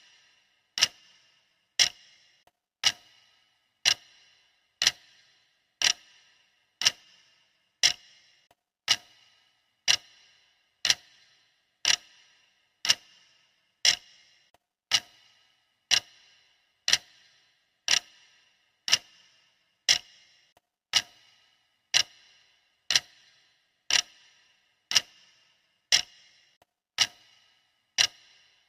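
Clock ticking steadily, one sharp tick a second, each with a brief ringing tail.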